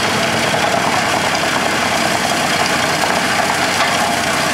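Tracked mobile wood chipper running steadily under load, its engine and chipping drum working through logs.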